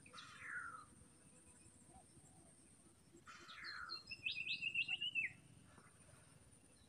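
Forest birds calling: a falling whistle near the start and another a little past three seconds in, then a quick run of chirps about four to five seconds in. A steady high insect drone runs underneath.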